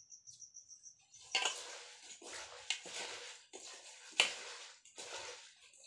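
Scraping and rustling of food being handled in a small steel pot, in several bursts, with a sharp metal clink about four seconds in.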